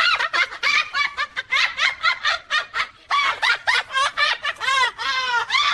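High-pitched laughter in quick repeated bursts, several a second, with a brief pause about three seconds in.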